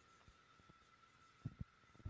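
Near silence: room tone with a faint steady high-pitched hum, and two soft brief sounds about one and a half seconds in.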